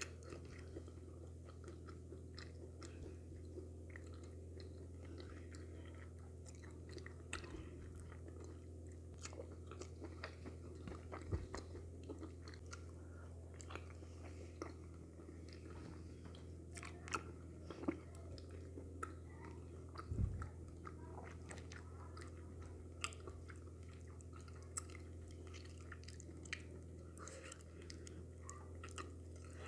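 Close-miked chewing and wet mouth sounds of a person eating fish in okra soup with her fingers, with scattered small clicks and crunches, over a steady low hum.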